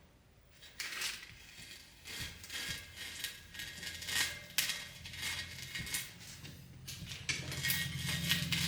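Scattered metallic clinks and clatters of tools and motorcycle wheel parts being handled, with a low steady hum coming in about halfway through.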